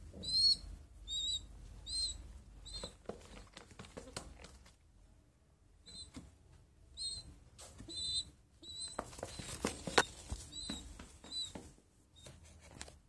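Young pigeons (squabs) peeping: a dozen or so short, high squeaks in irregular runs, with a pause in the middle. Rustling and knocks of feathers and handling are loudest about nine to ten seconds in.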